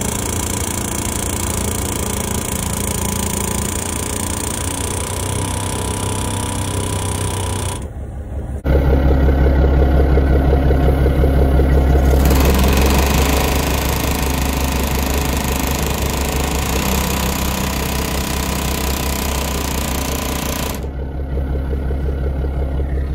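Pneumatic air hammer rattling rapidly against the threaded gland nut of a dump truck's hoist cylinder, driving it round to tighten the leaking packing. It stops briefly about 8 seconds in, then starts again louder.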